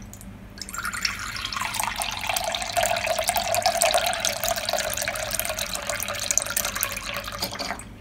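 Water running steadily from a tap into a sink. It starts about half a second in and stops just before the end.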